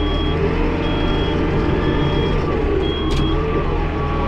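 Yanmar YT347 tractor shuttled into reverse, heard from inside its cab. Its reverse alarm beeps about once a second, four times, over the steady running of the diesel engine. There is one sharp click a little after three seconds in.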